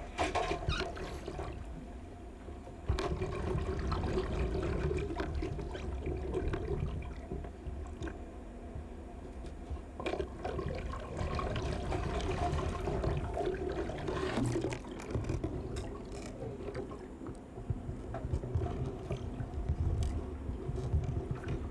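Hurricane storm-surge floodwater rushing and churning into a hotel stairwell, a continuous watery rush over a deep rumble that swells and eases.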